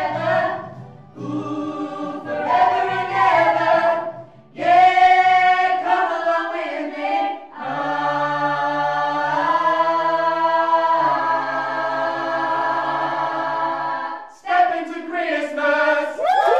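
A group of singers singing a Christmas song in close harmony, in short phrases that lead into a long held chord in the middle. Cheering and clapping break out right at the end.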